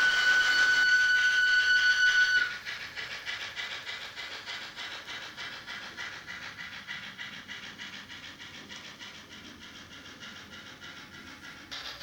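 Model steam railcar's DCC sound decoder (Loksound Micro, Kittel steam loco sound file) playing through a small oval speaker. A steady steam whistle is held until about two and a half seconds in, then gives way to fast, even chuffing that gradually fades.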